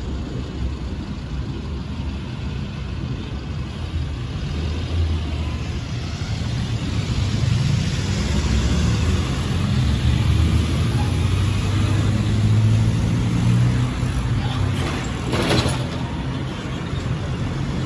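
Low engine rumble that swells for several seconds and then eases, with a short hiss near the end.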